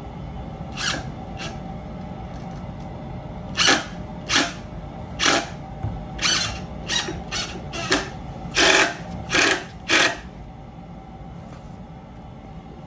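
Power drill run in about ten short bursts, driving screws into wood, over a steady low hum.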